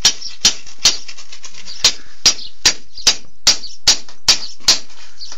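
Scythe blade being peened: a hammer striking the steel edge against a small anvil, hammering it thin. Sharp metallic strikes come steadily about two and a half a second, with a short pause about a second in.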